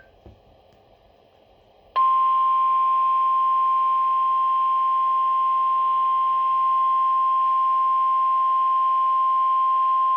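Emergency Alert System attention tone: a single loud, steady 1050 Hz tone of the National Weather Service, starting about two seconds in after a near-quiet gap and holding unchanged. It signals that a weather warning message follows.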